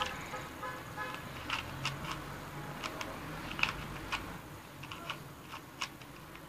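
Rubik's cube being turned fast by hand in a speed solve: irregular plastic clicks and clacks as the layers snap round, a few sharper than the rest.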